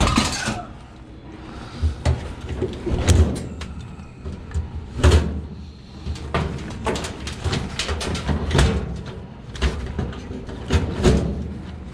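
Irregular knocks, clunks and rattles of scrap metal being handled and packed into a car, the loudest about three and five seconds in.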